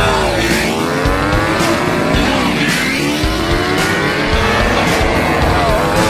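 MotoGP race bikes' four-cylinder engines revving, the pitch rising and falling several times as the bikes roll off slowly. Music with a regular beat about once a second plays underneath.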